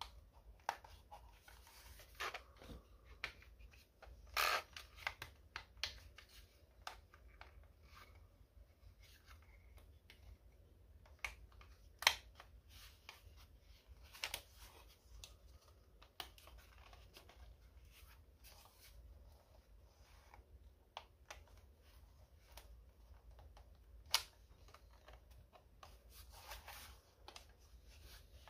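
Scattered sharp plastic clicks and taps from a TBS Tango 2 radio controller's clear plastic case as its back plates are pressed onto their tabs one at a time. The loudest click comes about 12 seconds in.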